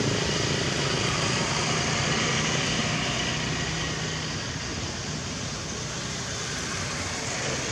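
Steady drone of a passing motor vehicle's engine, slowly fading away.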